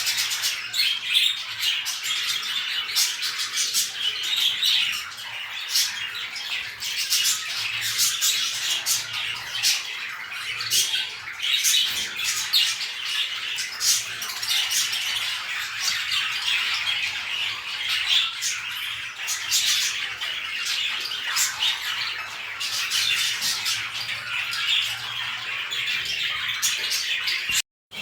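Pet cage birds chattering, a dense continuous stream of short chirps, squawks and clicks. It cuts out briefly near the end.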